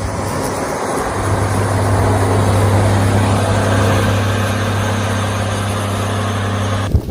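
A vehicle engine running steadily, a low hum with noise over it, cutting off suddenly just before the end.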